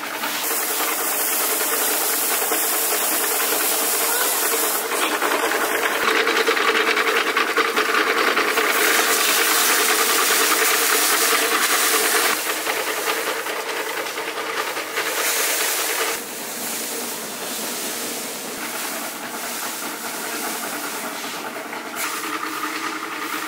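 Paddy thresher drum spinning while bundles of rice stalks are pressed against its wire teeth: a loud, steady rattling rush of straw and grain being beaten off, over a steady low hum. The rush eases in the second half and picks up again near the end.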